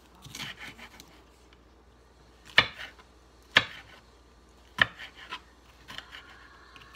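Kitchen knife slicing chili peppers on a wooden cutting board. A soft rustle comes first, then three sharp knocks about a second apart and a few lighter taps.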